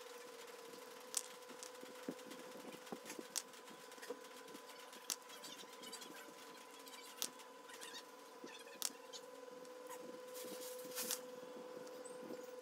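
Faint clicks and ticks of a hand screwdriver and small machine screws being fitted and tightened into a model differential cover, over a steady faint hum.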